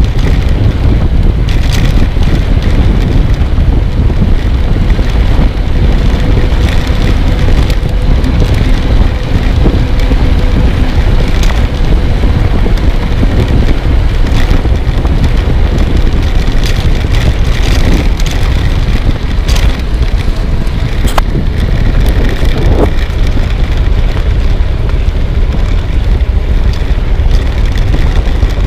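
Wind buffeting the microphone of a camera on a moving bicycle: a loud, steady low rumble, with occasional sharp knocks.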